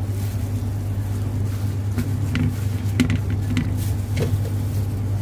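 Steady low hum of kitchen machinery, with a few light clicks and knocks a couple of seconds in.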